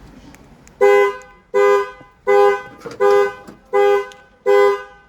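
Ford Expedition's dual-tone horn sounding its panic alarm in evenly spaced blasts, about one and a third per second, starting about a second in. This is the panic function being set off from a newly programmed remote key fob to test it.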